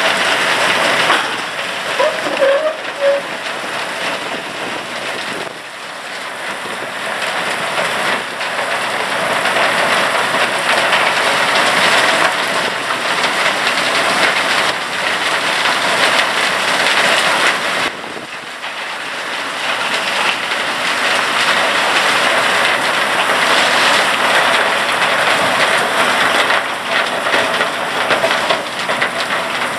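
SLK-GT200 trommel gold wash plant running: a loud, steady rushing noise of the rotating drum and its wash water, easing briefly twice.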